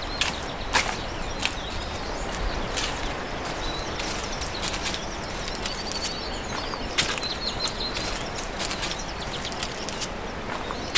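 Footsteps on a leaf-littered dirt path, irregular crunches and taps, over a steady rushing noise. Short high bird chirps come about four seconds in and again around seven to eight seconds.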